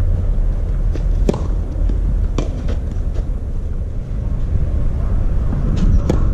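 Tennis balls struck by rackets and bouncing on a clay court: several sharp pops, a second or so apart, the loudest about a second in and near the end. Steady low wind rumble on the microphone underneath.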